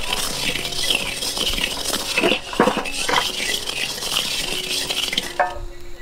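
Paddy rice being stirred and roasted in a large iron wok with a long-handled ladle: a steady rhythmic rustle of dry grains sweeping round the pan, with a few sharper scrapes and knocks of the ladle against the iron. The stirring sound stops shortly before the end, giving way to music.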